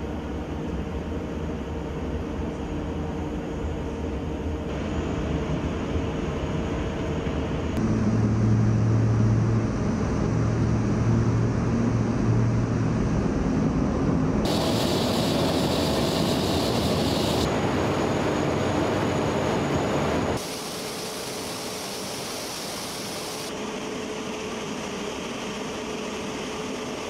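Steady machinery noise with a low hum, the ambient running noise of the aircraft test hangar and its control room. Its tone and level change abruptly several times, and it is loudest with a strong low hum from about 8 to 14 seconds in.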